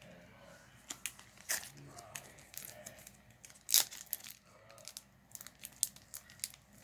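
Plastic booster-pack wrapper crinkling and being torn open: irregular sharp crackles, the loudest about four seconds in.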